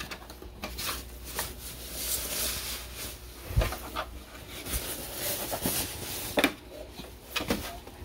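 Packaging rustling and knocking as a boxed digital keyboard is wrestled out of its box, with a dull thump about three and a half seconds in and a few smaller knocks later.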